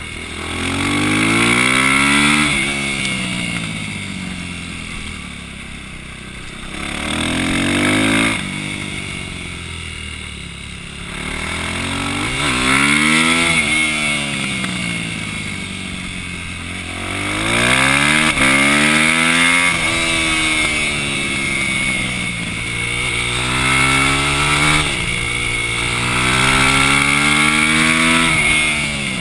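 Supermoto motorcycle engine heard on board, the rider opening the throttle so the revs climb, then backing off and letting them fall for the next corner, about six times over.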